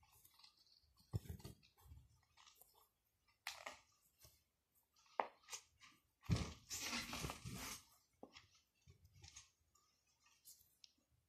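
Faint rustling and scraping of fabric and thread handled close to the microphone while a needle is worked through a lace edging. There are a few short scratchy sounds, and a longer rustle of about a second and a half just past the middle.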